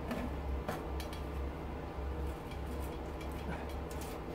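A few faint clicks and light metal taps as a scrap pot-light housing is handled and pulled apart, over a steady low hum.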